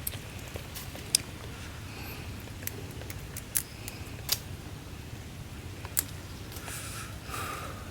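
Scattered sharp clicks and snaps, about five of them at uneven intervals, over a steady low background.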